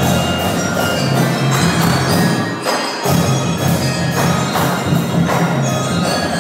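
Marching percussion band playing a fast piece: mallet keyboards such as glockenspiels and marimbas ring out over drums and clicking wood-block-like strokes, with a pulsing low bass line.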